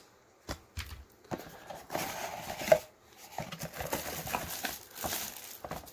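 Unboxing handling noises: a few light knocks, then rustling and scraping of the cardboard box and packaging as the 12-volt power adapter and its cord are lifted out, with one sharp click a little before the middle.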